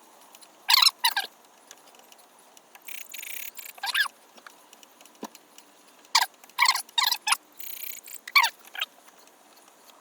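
A 2000-grit sanding disc on a hand pad wet sanding a plastic headlight lens, scrubbed back and forth in short, irregular strokes, some coming out as brief high squeaks.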